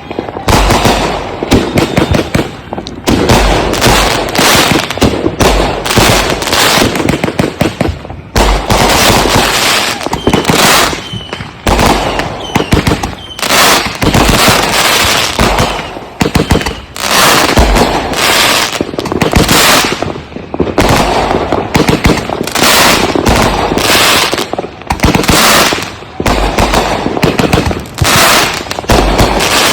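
Consumer firework cakes firing a continuous barrage: rapid, loud shots and bursting bangs, several a second, with crackling in between. A few short whistles come about a third of the way in.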